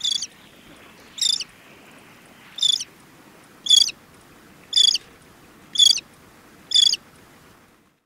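Lesser crested tern calling: seven short, high calls at a steady pace of about one a second, over a faint steady background hiss.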